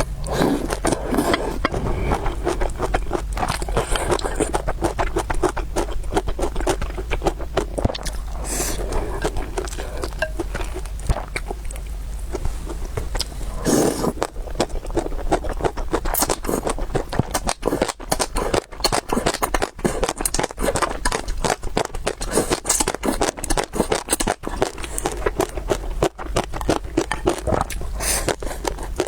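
Close-miked eating of spicy noodles, rice noodle soup and meatballs: a dense, continuous run of chewing and wet mouth clicks with some scraping.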